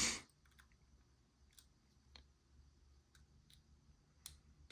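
A brief rush of noise at the very start, then faint, sparse clicks of a hook pick working the pins inside an ABUS 72/40 padlock that is being picked in hand.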